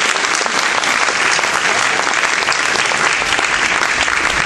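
Audience applauding steadily after a song, a dense even clapping from many hands.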